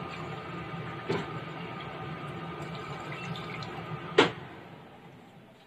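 A steady rushing hum with a light knock about a second in and a sharp, loud knock a little after four seconds. The hum then fades away.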